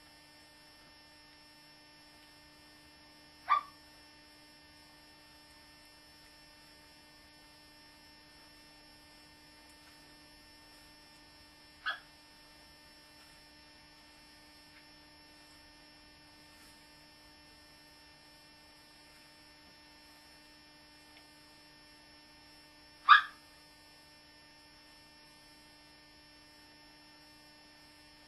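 A dog giving three single short barks several seconds apart, the last the loudest, over a steady electrical hum.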